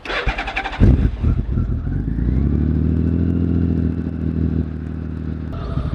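1997 Honda Valkyrie's flat-six engine cold-started on the choke: a brief crank on the starter, catching just before a second in, then settling into a steady fast idle that eases down slightly near the end.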